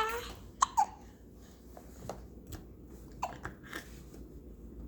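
Baby hiccupping: two sharp little hics close together just under a second in, then fainter short sounds at intervals.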